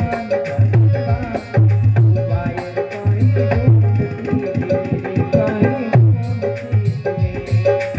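Instrumental interlude of a Rajasthani devotional bhajan: a steady drum rhythm with deep bass strokes under a repeating melody line, with no singing.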